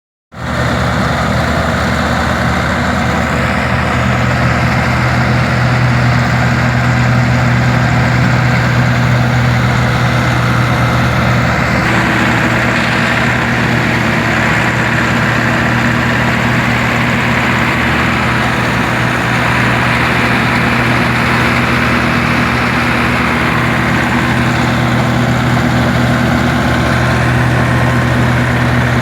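Massey Ferguson 385 diesel tractor running steadily while driving a wheat-straw chopper blower, a constant engine hum under a broad, even rushing noise from the machine. The sound starts abruptly right at the beginning and holds steady throughout.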